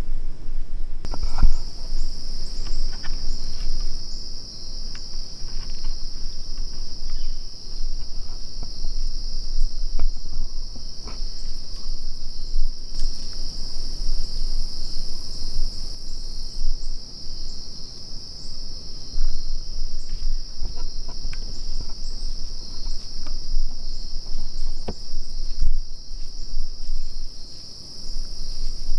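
Steady high-pitched insect chorus, one unbroken buzzing band, starting about a second in, over a low rumble with a few soft knocks.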